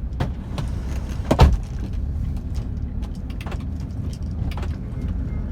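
Car running, a steady low rumble of engine and road noise, with scattered light clicks and one sharp knock about a second and a half in.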